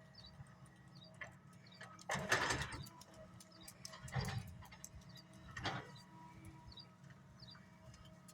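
Track hoe (excavator) engine running steadily on a demolition site, with three short noisy bursts about two, four and five and a half seconds in, the first the loudest.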